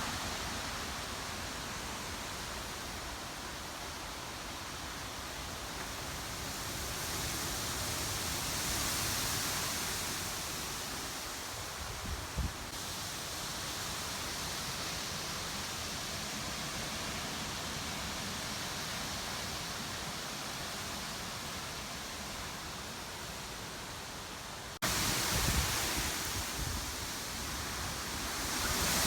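Storm-force wind blowing in gusts, a steady rushing noise that swells and eases. About twelve seconds in, and again after an abrupt jump in level near the end, gusts buffet the microphone with low rumbling thumps.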